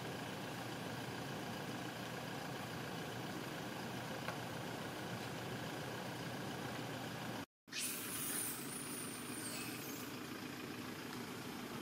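Steady engine hum of an idling vehicle. It drops out for an instant a little over halfway through, and just after, a faint high thin squeal sounds for a second or two.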